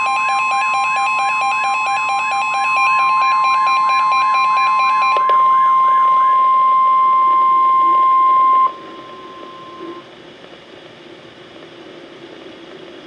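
Emergency Alert System attention signal on NOAA Weather Radio: a steady, loud single tone near 1 kHz, the 1050 Hz warning alarm tone. For about the first five seconds a warbling, beeping alarm plays over it. The tone cuts off sharply about 8.7 seconds in, leaving faint radio hiss and hum before the warning announcement.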